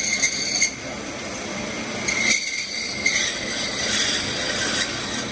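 CNC vertical milling machine cutting a metal brake caliper bracket under flood coolant, the end mill giving high-pitched cutting tones that come and go over the steady machine noise, with coolant and chips spattering.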